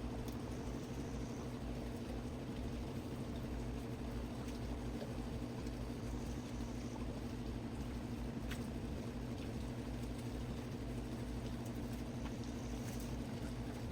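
Steady low mechanical hum with faint background noise, and one faint click about eight and a half seconds in.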